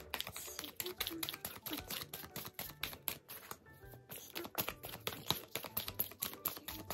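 A deck of oracle cards being shuffled by hand: a fast, continuous run of light clicks as the card edges slide and tap against each other, over soft background music.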